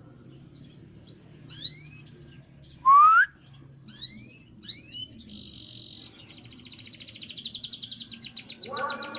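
Domestic canary singing. A string of short rising whistled notes, with one loud upslur about three seconds in, then a short buzzy note, and from about six seconds a fast rolling trill of rapidly repeated high notes.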